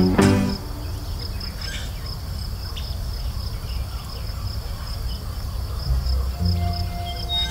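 Crickets chirping in a steady, evenly pulsing rhythm. Music fades out in the first half second and comes back in about a second before the end.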